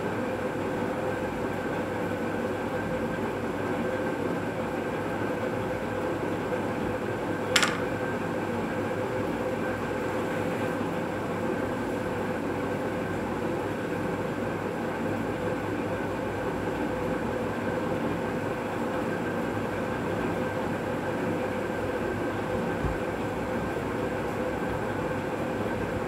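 A steady droning hum with a few constant tones in it, unchanged throughout, and one sharp click about seven and a half seconds in.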